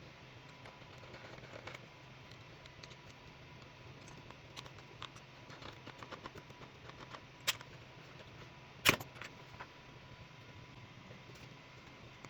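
Hard plastic parts of a 3D-printed action figure clicking and tapping as it is handled, with two louder clacks about seven and a half and nine seconds in. A faint steady hum runs underneath.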